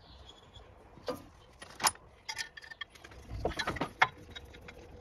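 Loose metal hardware clinking and rattling as fan bolts and parts are handled at the water pump pulley: a few separate clinks, then a rattling stretch about halfway through.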